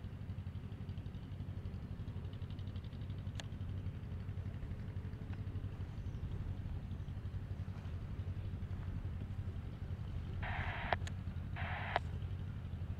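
Mooney M20J single-engine piston plane on approach, its engine and propeller a steady low drone. Two short bursts of radio noise come near the end.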